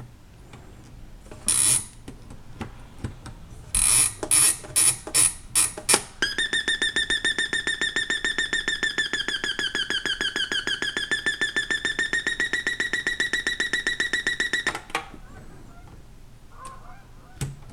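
Panasonic RC-6040 flip clock radio's alarm buzzer sounding: a loud, rapidly pulsing high-pitched buzz that starts about six seconds in and cuts off sharply after about eight and a half seconds. Before it come a few short hissy bursts.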